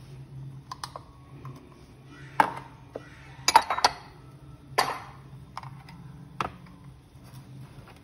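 Irregular sharp clicks and clacks of kitchen containers and utensils being handled, with a quick cluster of them near the middle, over a faint low steady hum.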